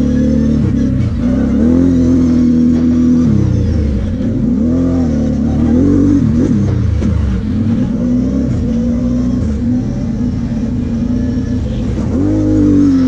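Kawasaki KFX 700 V-Force quad's V-twin engine running under way, its revs rising and falling with the throttle: the pitch dips and climbs again several times and rises sharply near the end.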